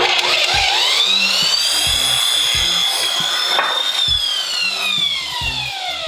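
Electric sliding compound miter saw starting up with a rising whine and running at full speed while the blade is brought down through a wooden board. From about four seconds in, the whine falls steadily as the blade spins down.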